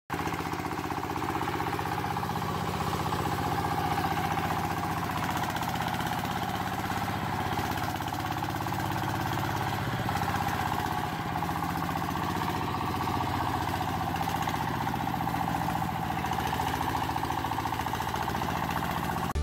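A motor running steadily at an even pace for a mini toy tractor, with a fast regular pulsing and no change in speed.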